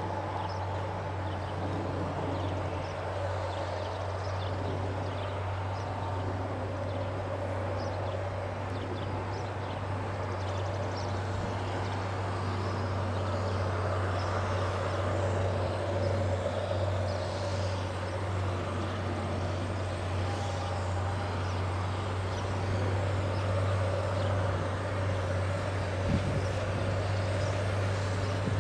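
Diesel engine of a Challenger articulated four-wheel-drive tractor running steadily under load as it pulls a field cultivator through cornstalk stubble, a deep even drone with the rush of the tillage and tyres over it. A single sharp knock sounds near the end.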